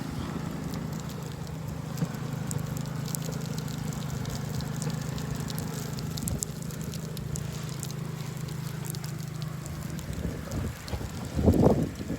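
Snowstorm: a steady low hum with a scatter of fine ticks of precipitation hitting a surface, then wind buffeting the microphone in gusts near the end.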